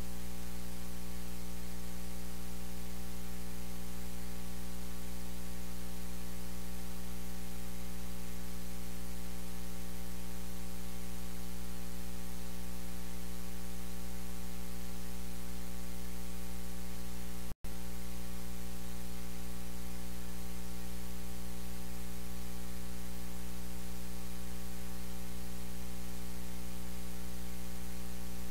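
Steady electrical mains hum, a low tone with a ladder of buzzing overtones over a constant hiss. It cuts out for an instant about two-thirds of the way through.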